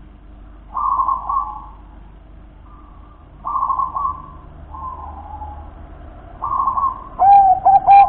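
Zebra dove cooing: a series of short, trilling coo phrases, with louder and sharper notes near the end.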